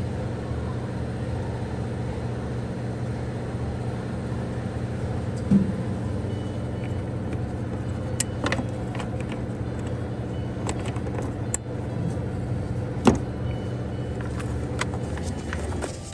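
Car engine idling steadily, with a few sharp clicks over the top.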